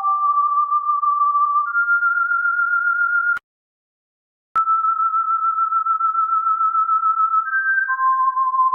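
Electronic sine-wave tones, one pitch at a time, stepping up between held notes around a kilohertz, with a fast waver in loudness. About three and a half seconds in it cuts off with a click, stays silent for about a second, then resumes with a click on a long held tone before stepping down near the end.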